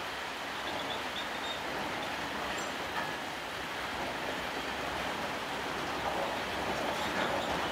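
Covered freight wagons rolling past on the rails: a steady rolling noise of wheels on track, with a single faint click about three seconds in, growing a little louder near the end.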